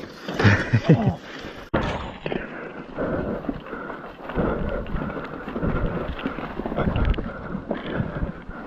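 Wind buffeting the microphone and rolling trail noise from a mountain bike being ridden on a wet trail, surging unevenly, with a sudden brief dropout about two seconds in.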